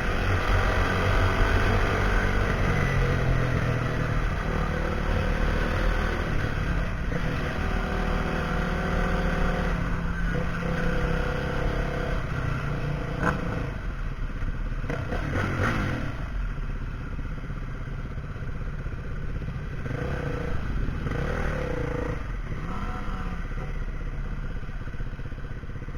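Husqvarna SMR 511 supermoto's single-cylinder engine running through a full Akrapovic exhaust, its pitch rising and falling with the throttle. The sound grows gradually fainter toward the end.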